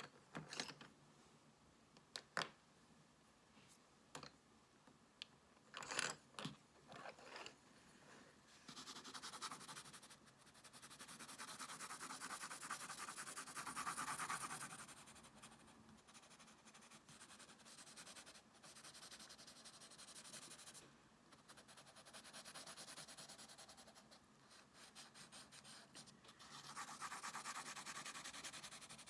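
Pencil crayon shading on sketchbook paper: a scratchy rasp of rapid strokes that starts about eight seconds in and goes on with short pauses. Before it, a few sharp taps and clicks.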